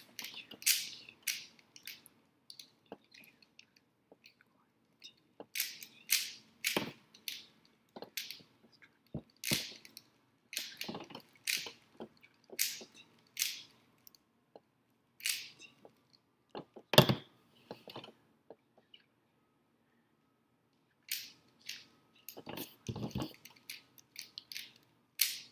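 Plastic Rubik's cube layers being turned in quick, irregular spurts of clicking and rattling, with short pauses between bursts. There is one louder clack about two-thirds of the way through.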